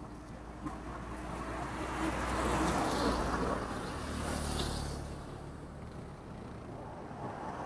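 A road vehicle passing by, its engine and tyre noise rising to a peak about three seconds in and then fading away.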